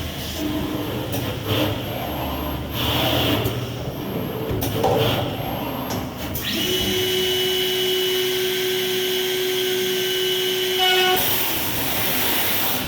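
CNC corner cleaning machine for PVC window frames working: irregular clatter and noisy surges at first, then a steady high whine of its cleaning cutter spinning for about four and a half seconds, which cuts off sharply and gives way to a hiss.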